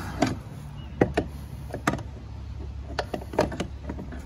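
Irregular metallic clicks and knocks of a wrench shifting and catching on the end cap of a Volvo Penta outdrive's trim/tilt hydraulic cylinder as the cap is turned loose, about seven in four seconds, over a low steady hum.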